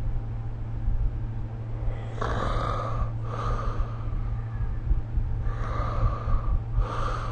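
A sleeping person snoring, breathing slowly and noisily. Two breaths stand out, one about two seconds in and one near the end, each heard as two rushes of air in quick succession, over a steady low hum.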